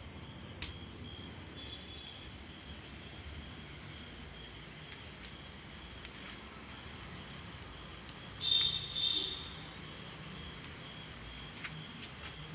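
Steady high-pitched chirring of night insects, with a few faint clicks and one short louder burst about eight and a half seconds in.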